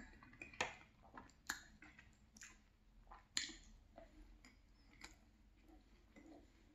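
Faint, close-miked mouth sounds from a swallow of chocolate milk and the pause after it: a scattering of soft wet clicks and lip smacks. The sharpest come about half a second, a second and a half, and three and a half seconds in.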